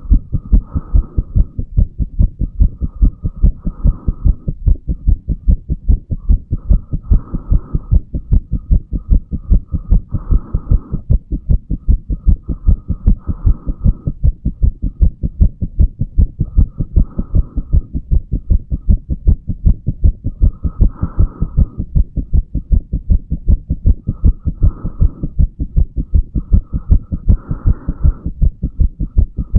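A human heartbeat recorded over the mitral valve area of the chest: a steady, regular run of low thumps. A soft hiss swells and fades every three to four seconds.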